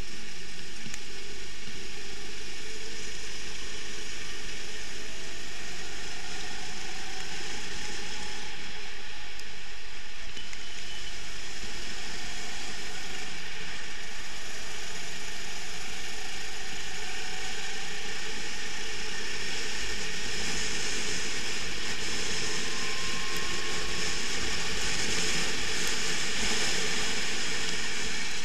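Onboard sound of a Sodi rental kart running at race pace: a dense, even mechanical rattle and hiss of engine and chassis vibration, with a faint engine note that rises and falls slowly through the corners.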